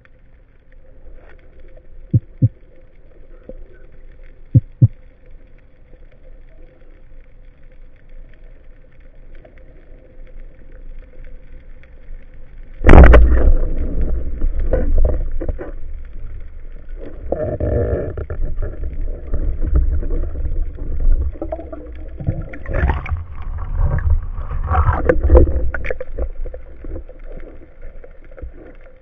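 Underwater sound on a spearfishing dive: a faint water hiss with two pairs of soft knocks, then a sudden loud crack about halfway through as a band-powered speargun fires. Loud rushing water and knocking follow as the diver moves with the gun.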